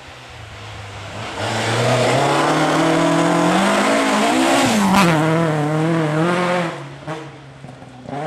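A rally car's engine approaches hard on a gravel stage, its pitch climbing. About five seconds in it passes with a sharp crack and the pitch drops steeply. It runs on at lower pitch and fades away after about seven seconds.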